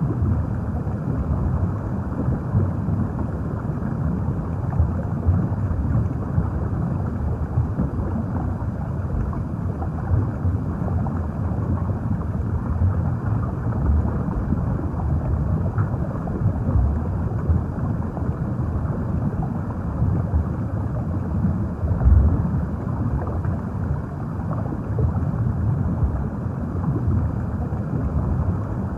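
Underwater ambience: a steady, muffled low rumble of moving water.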